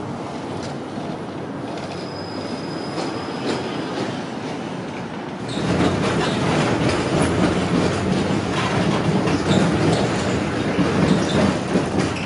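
A low-floor tram running along its track, with a short, thin squeal of the wheels on the rails. About five seconds in it gives way to the louder ride noise heard inside a moving low-floor tram, which stays steady.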